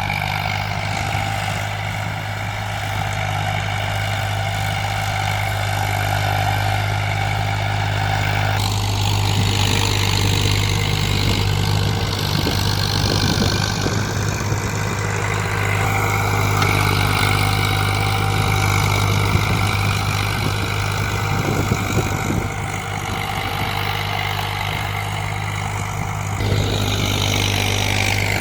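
Tractor engine running steadily while ploughing, a constant low hum whose tone shifts abruptly a few times.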